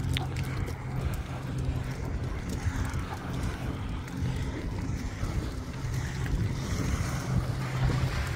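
Wind buffeting the phone's microphone over the steady low drone of a boat motor on the water. The drone fades in the middle and comes back stronger for the last few seconds.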